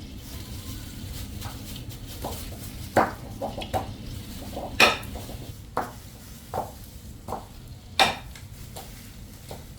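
A utensil stirring and pressing mashed cassava in a pan, knocking against the pan in irregular strokes, with three louder clanks among the softer ones.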